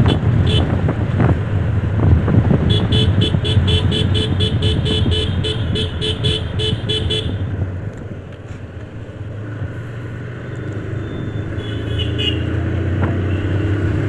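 Wind and road rush from a moving motorcycle, with a rapid beeping of about four beeps a second for several seconds in the middle. The rush drops away after about eight seconds, leaving a quieter, steady engine hum.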